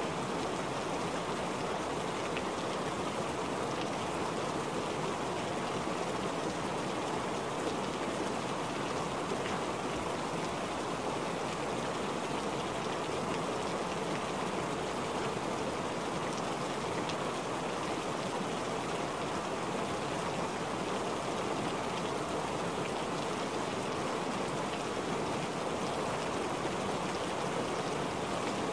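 Steady rain falling and splashing on standing water, an even, unbroken hiss.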